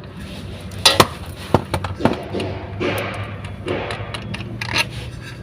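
Metal clinks and knocks of hand tools and parts being handled during work on a 4WD actuator motor, with a few sharp strikes in the first two seconds, over a steady low hum.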